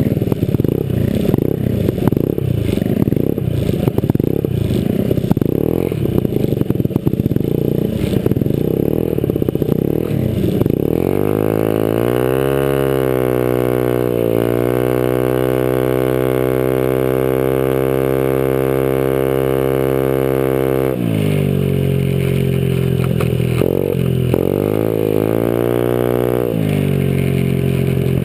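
Honda Ruckus scooter's single-cylinder engine running through a Leo Vince exhaust with its silencer removed, loud, while riding. For the first third the sound is rough and unsteady with no clear note; then a steady engine drone sets in, dips and recovers once, and later rises and falls with the throttle several times before settling again.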